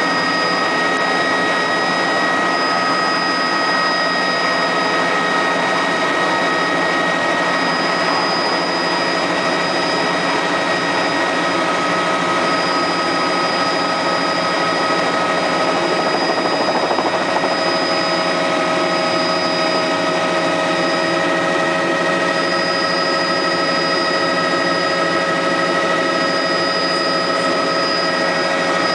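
Helicopter engine and rotor running steadily, heard from inside the cabin, with several steady high whines over the noise.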